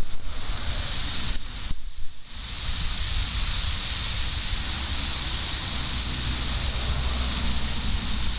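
Wind rumbling on the microphone, with a steady high-pitched hum underneath; the sound dips briefly about two seconds in.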